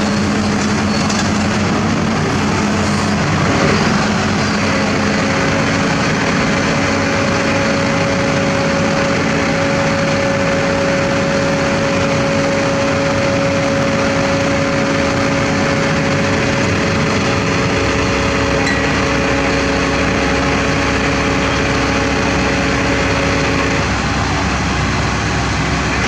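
Diesel engine of heavy equipment running steadily. Its tone steps up about five seconds in and shifts again near the end.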